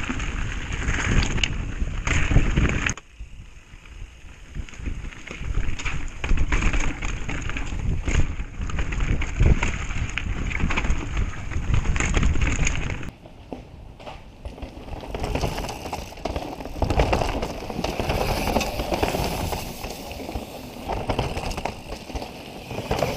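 Mountain bike riding over a rocky dirt trail, heard from a rider-worn camera: a steady low rumble of tyres and air with frequent rattles and knocks as the bike hits rocks and roots.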